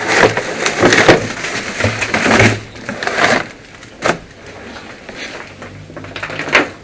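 Loose papers and folders being rustled and shoved aside by hand, with a few sharp knocks.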